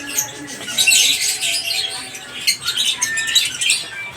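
Lovebirds chattering: a fast, continuous string of high, scratchy chirps and squawks.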